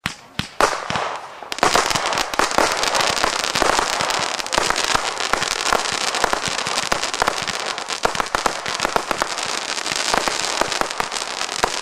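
Big Birtha firework going off: a few separate bangs in the first second and a half, then dense, continuous crackling packed with sharp pops.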